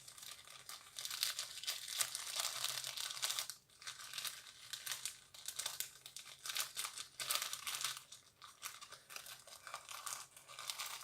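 Plastic packaging crinkling and rustling as it is handled, with a brief lull about three and a half seconds in.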